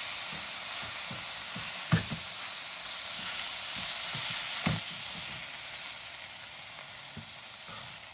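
Chicken frying in a pan with a steady sizzle, easing slightly toward the end, with a few short knocks, the loudest about two seconds in.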